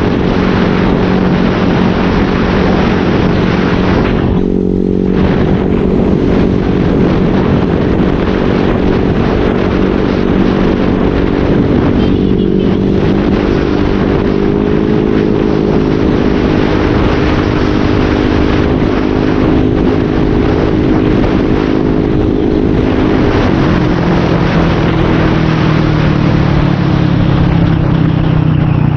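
Motorcycle with an aftermarket SC-Project exhaust (modified elbow pipe) running at a steady cruise, with heavy wind rush over the microphone. The exhaust note drops lower about 23 seconds in and rises again near the end.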